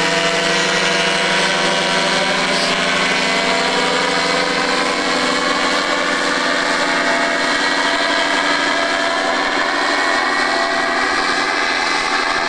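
Paramotor engine and propeller running in flight, a loud, steady drone.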